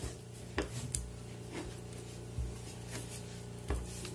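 Faint wet handling of a frozen shrimp burger patty being turned in beaten egg on a plate, with a few soft knocks and taps against the plate, over a steady low hum.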